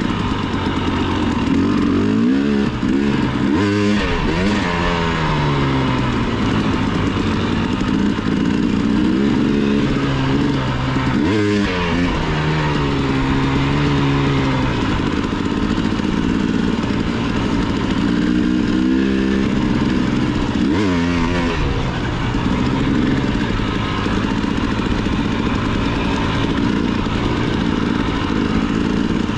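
Off-road motorcycle engine running hard, its pitch climbing and falling again and again with the throttle, with three sharp drops and climbs, over a steady rushing noise.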